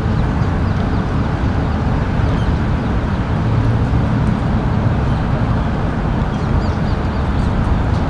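Steady low outdoor rumble, like wind on the microphone or distant traffic, with a few faint bird chirps near the end.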